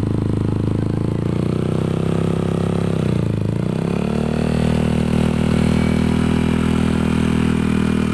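Yamaha Aerox 155's single-cylinder engine idling through an F2Racing Hexagon long stainless-steel aftermarket exhaust. The engine speed dips briefly about three seconds in and comes back up, then runs steady.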